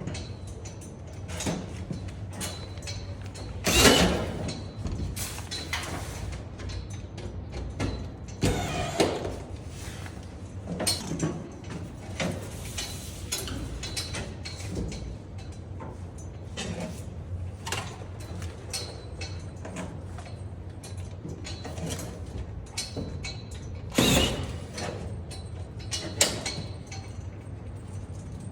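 Knocks and scrapes from a drywall panel being handled and worked into place, with a sharp knock about 4 s in and another about 24 s in, over a steady low hum.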